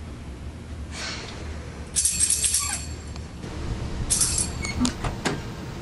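Two short bursts of metallic jingling, about two seconds apart, followed by two sharp clicks.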